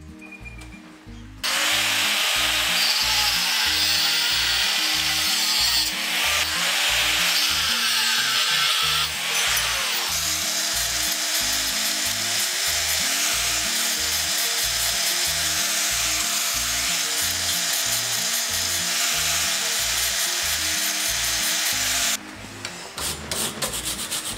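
Angle grinder with a thin cutting disc cutting through a steel rebar rod clamped in a vise: a loud, steady hissing cut over the motor's whine, starting about a second and a half in, dipping briefly twice and stopping near the end. Background music with a steady beat underneath.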